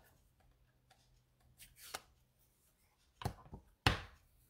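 A few short knocks and taps of craft supplies handled on a desk, a plastic ink pad and sponge dauber being put down and picked up; the sharpest knock comes near the end.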